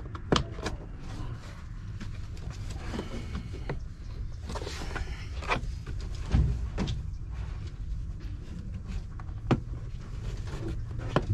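Plastic car door trim panel being pushed onto the door: scattered sharp clicks and knocks as its retaining clips are pressed into their holes, over a steady low rumble.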